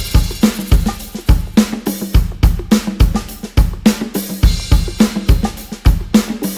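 Music stripped down to a drum break: kick, snare and hi-hat keep a steady beat after the bass and melody drop out.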